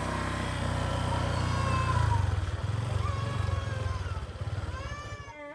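Small motor scooter engine running at a standstill, a steady low rumble that swells about two seconds in, with a few thin, high gliding cries over it.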